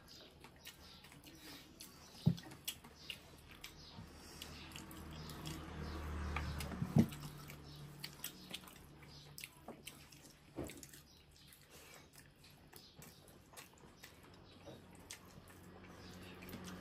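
Close-up eating sounds: chewing and small wet mouth clicks, with fingers mixing rice on plates. Two sharper knocks stand out, about two and seven seconds in, and a low hum swells and fades in the middle.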